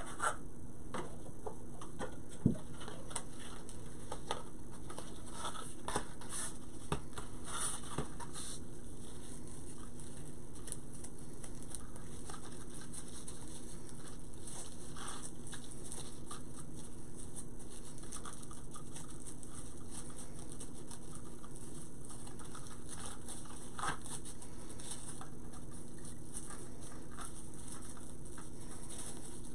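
Ribbon being handled and twisted into a bow: scattered rustling and crinkling with small clicks, busiest in the first several seconds, with a sharper tap about two and a half seconds in. A steady low hum runs underneath.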